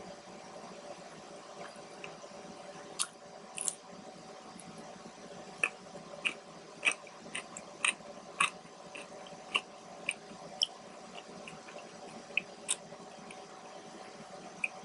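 A person chewing a mouthful of food close to the microphone, with a string of irregular, sharp, wet mouth clicks and smacks.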